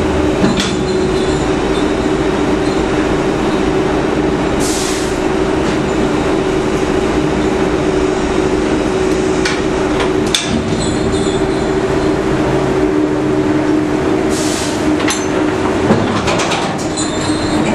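A trawler's deck machinery runs steadily with a droning hum while the winch hauls the warp and heaves the steel trawl door up to the gallows block. There is a sharp metallic knock about ten seconds in and two brief hisses.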